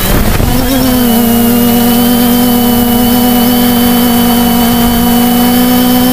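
Sky-Hero Spyder 700 quadcopter's four CD 3536 770kv brushless motors and propellers spinning up for takeoff, heard from the craft's own camera. The pitch rises for the first second, then settles into a loud, steady drone as it climbs.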